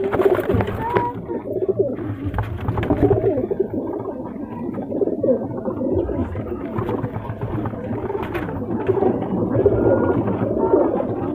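Many domestic pigeons cooing at once, a continuous overlapping chorus of low coos.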